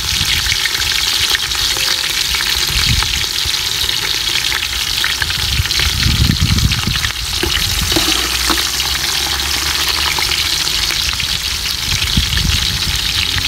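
Chopped onions sautéing in hot vegetable oil in a large pot: a steady, loud sizzle dotted with small crackles and pops.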